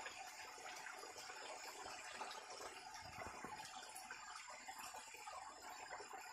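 Water of a rocky stream running and trickling steadily, a faint even rushing with small splashes.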